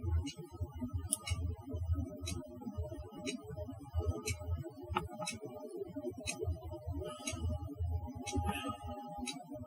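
Quiet background music with a steady beat: ticks about twice a second over a pulsing bass line.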